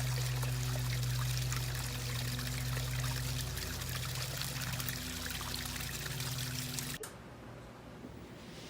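Steady trickle of running water with a low hum under it. It cuts off about seven seconds in, leaving only faint background noise.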